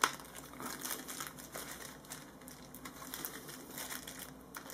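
Faint crinkling and rustling of thin plastic wrapping with scattered small clicks, as a small plastic PoE power injector is handled and worked out of its snug bag; one sharper click right at the start.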